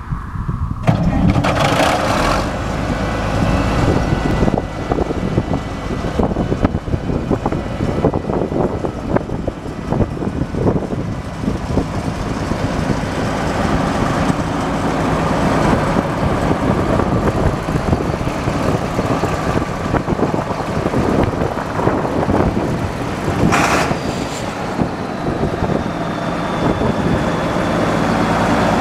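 The diesel engine of a 1979 International 3588 2+2 four-wheel-drive tractor running steadily.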